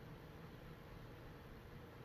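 Near silence: steady faint hiss of room tone.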